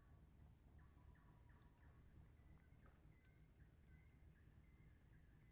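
Near silence, with a faint, steady, high-pitched insect drone, such as crickets, and a faint low rumble.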